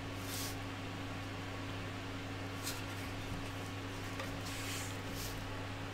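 Steady low hum of room machinery or a fan, with a few faint soft scrapes as a 3D-printed plastic part is handled.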